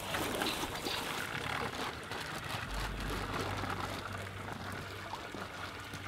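Water sloshing and trickling around large koi moving in a shallow tub.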